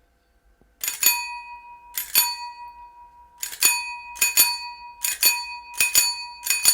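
1940s C. J. Adie bicycle bell from a Raleigh Sports bicycle, rung over and over by its lever-and-spring striker. It gives about seven double strikes, starting about a second in, and its ring carries on between them.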